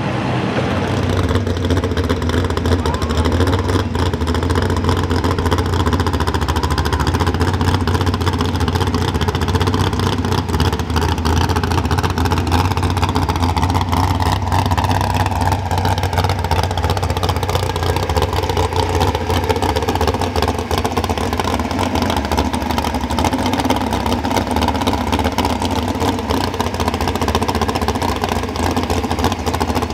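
Pro stock 4x4 pulling truck's engine running hard at high revs while dragging a weight-transfer sled. It is a loud, steady drone whose pitch sinks a little midway through and then holds.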